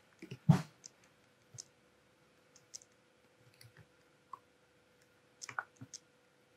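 Scattered light clicks and taps of hand handling, with a louder one about half a second in and a small cluster near the end, over a faint steady hum.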